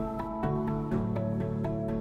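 Background music: a gentle instrumental piece with sustained notes that change about every half second.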